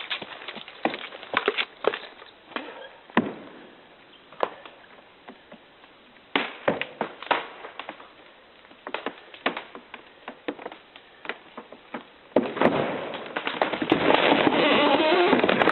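A felled tree's hinge wood cracking and snapping in irregular sharp pops as the tree starts to go over. About twelve seconds in, a loud, swelling rush begins as the crown tears down through the branches.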